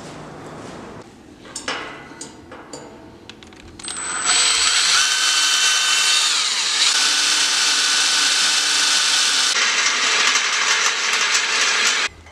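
Power drill boring a hole through a steel plate on a square steel-tube frame. It starts about four seconds in, runs steadily at full speed with a high whine for about eight seconds, and stops suddenly near the end. A few light knocks and clicks come before it starts.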